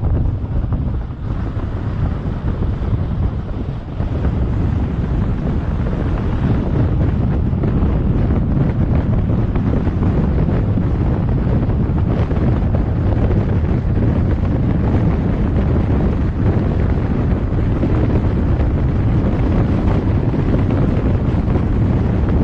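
Wind rushing over the microphone of a moving vehicle, over a steady low road and engine rumble; it is a little quieter for the first few seconds.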